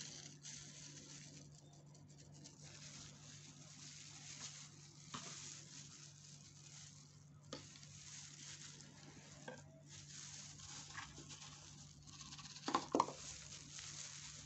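Faint crackling and rustling of a plastic glove and nylon bag handling powder over a plastic measuring cup, with a few light clicks and a couple of sharper clicks near the end. A steady low electrical hum runs underneath.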